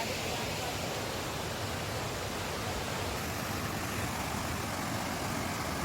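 Steady rushing of flowing water from a stream, an even hiss at a constant level.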